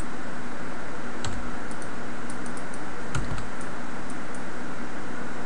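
Scattered sharp clicks of a computer mouse and keyboard, a few at a time, as vertices are selected in a 3D modelling program. They sit over a steady recording hiss with a faint low hum.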